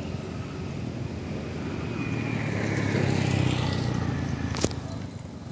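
A motor vehicle passing on the road. It grows louder to a peak about three seconds in, then fades, with a tone that drops in pitch as it goes by. A single sharp click comes near the end.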